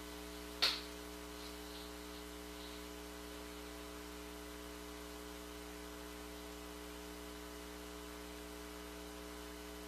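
Steady low electrical hum with several faint steady tones, the background noise of the recording, broken once by a short sharp click about a second in.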